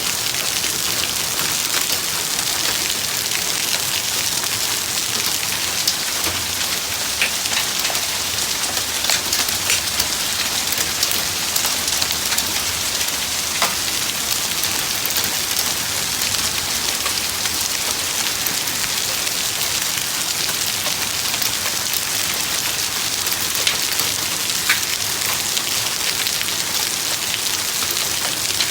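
Steady heavy rain falling on surfaces, with scattered sharp ticks of single impacts.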